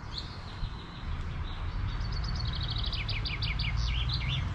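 A songbird singing: a quick run of chirping notes that speeds up and drops in pitch, ending in a short flourish, after a single chirp at the start. A steady low rumble runs underneath.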